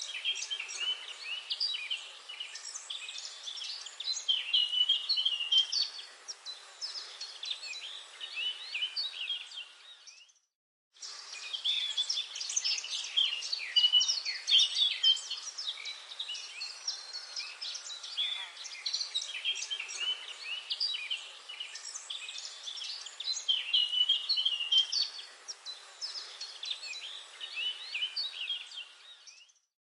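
A dense chorus of many songbirds chirping and calling at once over a soft forest hiss. About ten seconds in it fades out to a second of silence and comes back, and it fades out again near the end.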